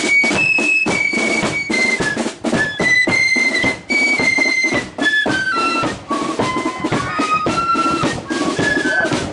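Marching flute band playing: many transverse flutes in unison carry a high tune over the steady strokes of side drums and a bass drum. The tune steps down from its higher notes to lower ones about halfway through.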